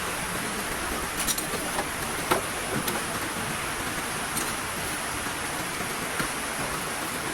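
Heavy rain falling steadily, with a few light knocks or taps scattered through it.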